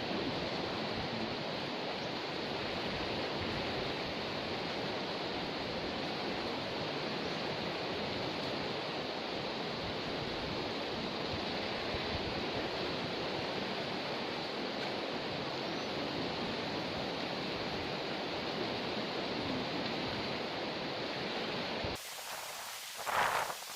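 Steady rushing of a river running high and fast after a flood. It cuts off abruptly near the end, leaving a thin hiss and one short louder sound.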